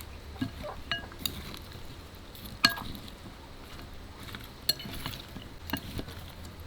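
Kitchen utensils and dishes clinking and knocking during cooking: a few scattered light clinks, the sharpest about two and a half seconds in, over a low steady hum.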